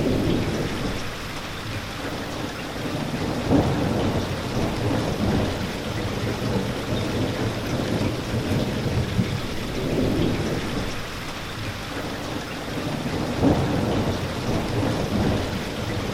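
Steady rain falling, with low rumbles of distant thunder swelling every few seconds.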